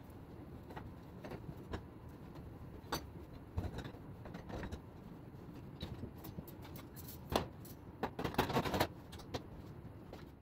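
Scattered light taps and clicks from cleaning a stainless steel gas stovetop by hand, with a denser run of rustles and knocks about eight seconds in as a fabric cover is spread over the stove.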